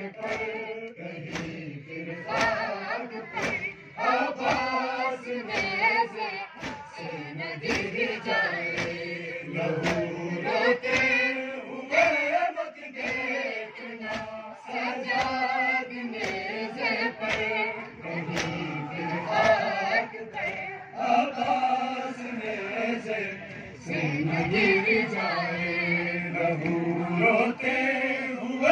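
A large crowd of men chanting a noha (Shia lament) in chorus, with sharp, rhythmic slaps of hands beating on chests (matam) in time with the chant.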